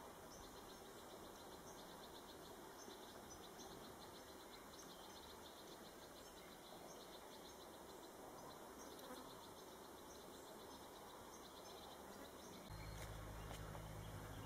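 Near silence: faint outdoor ambience with a faint, rapid, high-pitched insect chirping. A low steady hum comes in near the end.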